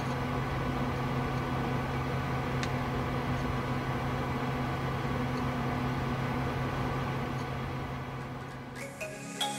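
A steady low hum with several fixed overtones, fading out near the end, followed by a couple of brief tones.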